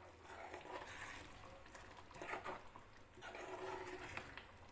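A steel spoon stirring thick, hot curry gravy in a pan: wet sloshing and squelching in uneven strokes, with a few short knocks of the spoon against the pan.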